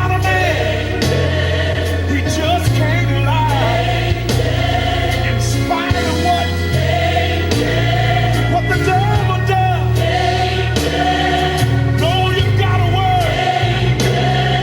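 Gospel choir singing with a live band: a strong bass line and drum and cymbal hits under the voices, loud and steady throughout.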